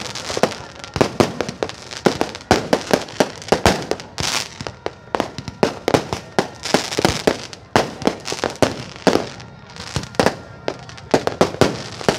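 Fireworks going off overhead: a dense, irregular run of sharp bangs and crackles, several a second, coming in clusters with short lulls between.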